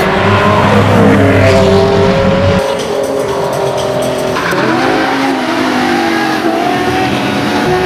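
Sports car engines revving and accelerating hard, spliced together from several clips, with abrupt changes in the sound about two and a half and four and a half seconds in.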